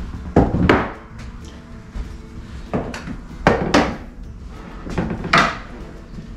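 About seven knocks and thumps, several in close pairs, as old bubble levels are picked up and set against a kitchen countertop.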